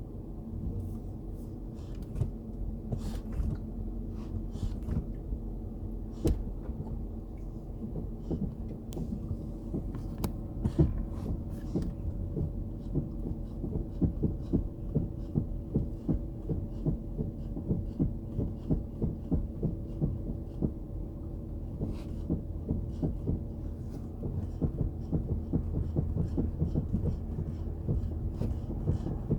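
Chrysler 300C with its engine running steadily, overlaid by a repeated, fairly regular tapping that comes when the brake pedal is pressed. The tapping is the fault the owner is chasing.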